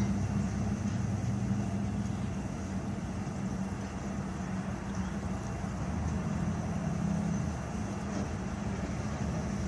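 Steady low hum of a car running, heard from inside the cabin.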